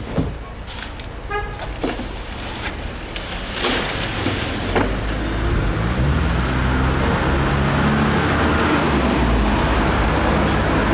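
A SYM Fiddle 125cc scooter engine starts running from about four seconds in and keeps running, its pitch shifting up and down with the throttle. Before that come a few clicks and a short beep about a second and a half in.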